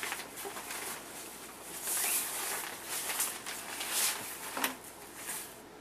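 Crinkling and rustling of a plastic bag and paper being handled by hand, in irregular bursts as items are pulled out of a package.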